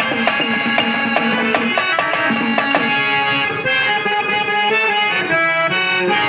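Live traditional Indian stage music: a harmonium holding sustained reedy chords and melody, with hand-drum strokes keeping a rhythm that thins out about halfway through.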